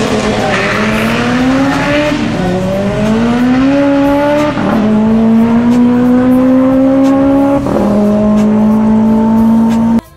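Turbocharged front-wheel-drive drag car accelerating flat out down the strip, its engine note climbing through the gears with three upshifts, about two, four and a half and seven and a half seconds in. The sound cuts off suddenly near the end.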